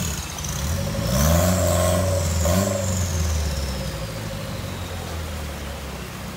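Off-road 4x4's engine revving twice, about a second and two and a half seconds in, then settling to a lower, steadier run. A thin high whine falls slowly in pitch over the first few seconds.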